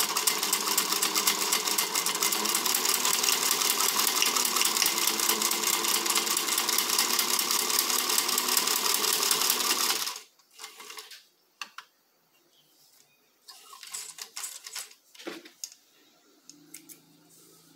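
Singer 15C straight-stitch sewing machine running steadily with rapid needle strokes, stitching through folded nobuck leather, then stopping suddenly about ten seconds in. A few faint clicks and rustles follow as the leather is handled.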